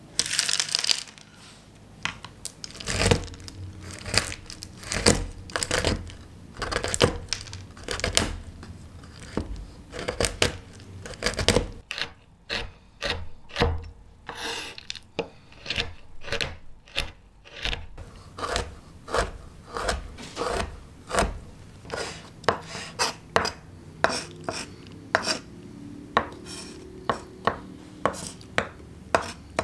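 A santoku knife chopping dark chocolate wafers on a wooden cutting board: a long string of sharp knocks, each with a crunch, about one to two a second and quicker in the second half. At the very start, chocolate wafers clatter as they are tipped from a wooden scoop onto the board.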